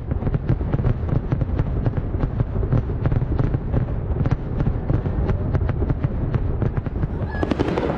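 Aerial fireworks display going off: a rapid, continuous run of pops and crackles, several a second, over a low rumble.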